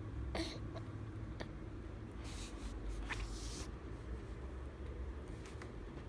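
Baby feeding from a bottle: soft sucking and swallowing clicks, with a brief rustle about two seconds in.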